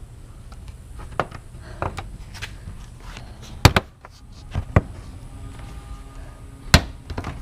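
Plastic retaining clips snapping loose as the front bumper cover of a 2008 Lexus IS F is slowly pulled off: a handful of sharp snaps and clicks, the loudest about three and a half seconds in and another near the end.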